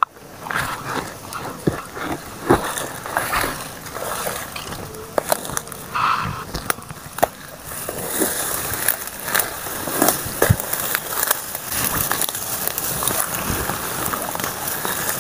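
Leaves and grass rustling and crackling as someone pushes through dense ferns and undergrowth, with irregular sharp clicks and knocks from handling and footsteps.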